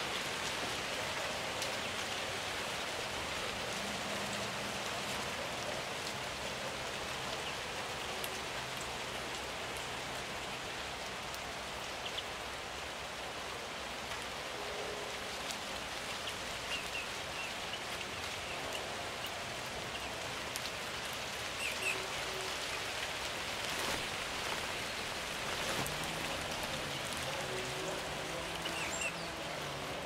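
Steady outdoor hiss, even and unbroken, with a few faint, short, high bird calls from the small birds at the feeder, heard now and then in the second half.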